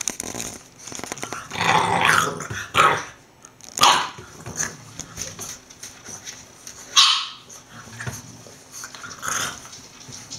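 English bulldog puppies play-fighting, growling with about five short barks, the sharpest about seven seconds in.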